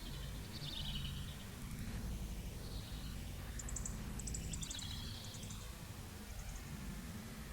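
Common chiffchaff giving a few short, high calls, with a rapid high ticking in the middle, over a steady low background rumble.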